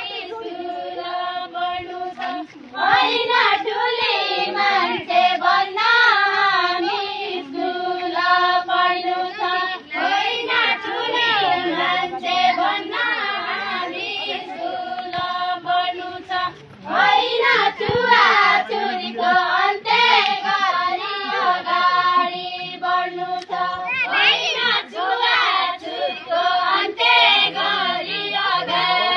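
A group of women singing a Deuda folk song together, with long, wavering held notes.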